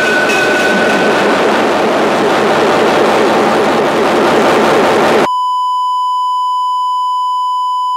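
Loud crowd of many people talking at once, with a steady high squeal over it for about the first second. About five seconds in the crowd cuts off suddenly and a steady, pure beep tone sounds to the end.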